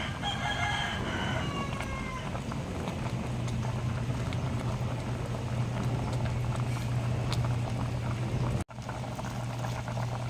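A rooster crows once at the start, a call about a second and a half long that falls slightly in pitch, over a steady low hum.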